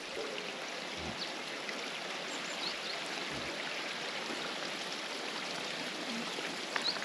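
Steady, even rushing of running water from a mountain stream, with a few faint short high chirps over it.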